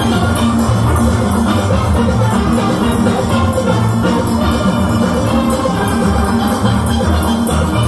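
A large steel orchestra of about 75 players performing live: massed steel pans playing the tune together, backed by drum kit and percussion with a steady beat.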